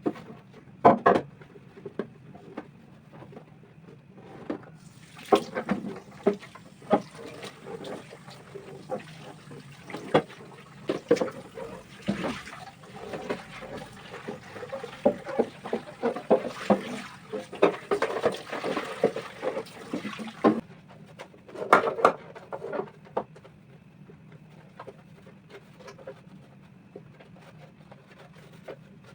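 Water running for about fifteen seconds, starting about five seconds in and cutting off suddenly, with knocks and clatter of things being handled under it. Scattered knocks before and after.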